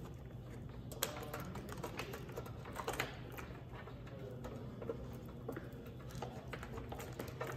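Scattered light clicks and taps of hands fitting parts and wiring under a motorcycle's seat, sharpest about a second in and again near three seconds, over a faint steady low hum.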